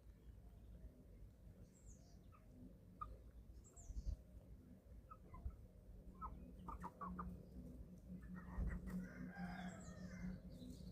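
Young chickens about 11 weeks old clucking and peeping softly while they feed. There is a quick run of short notes about six to seven seconds in, then a longer, louder call near the end.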